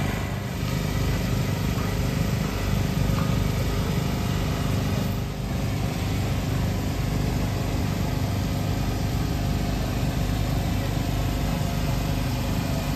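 A small engine running steadily with an even hum that doesn't change pitch.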